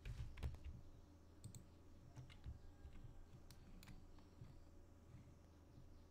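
Faint, scattered clicks of a computer mouse, irregular and a second or so apart, over a low steady electrical hum.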